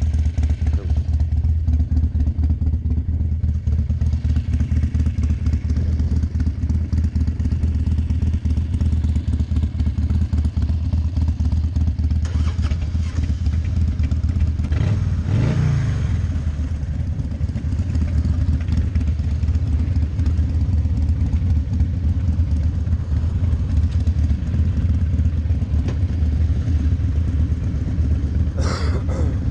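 Harley-Davidson Fat Boy's V-twin engine idling steadily, with a short throttle blip about halfway through that rises and falls in pitch.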